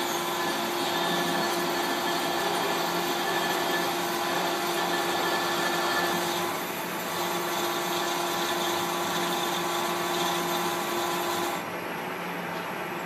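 Metal lathe cutting across a large metal disc: a steady machining tone over the hiss of the cut, with blue metal chips coming off. Near the end the tone stops and the sound drops a little, leaving the lathe running.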